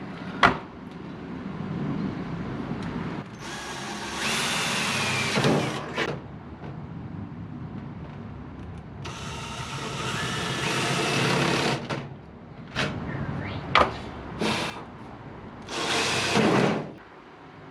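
A cordless power drill runs in three bursts of a couple of seconds each, with knocks and clicks of handling in between.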